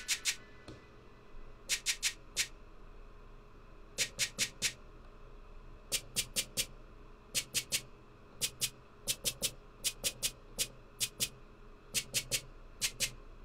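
A shaker drum-machine sample tapped out on Maschine pads: short, bright hits in quick groups of two to four, each group about a second or two apart.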